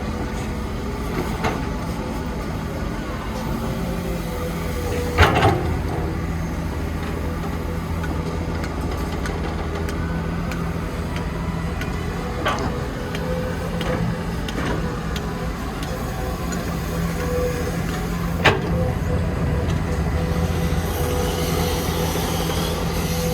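Heavy construction machinery engine running steadily, with a few sharp clanks of metal; the loudest comes about five seconds in and another near eighteen seconds.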